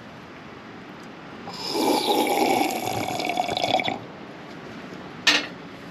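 Water poured from a small plastic bottle into a cooking pot for about two seconds, followed near the end by a single short knock.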